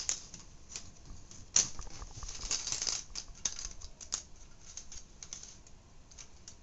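A floppy disk drive's casing being handled while its faceplate is worked loose: irregular small clicks, taps and scraping of plastic and metal, with sharper clicks about a second and a half in and again about four seconds in.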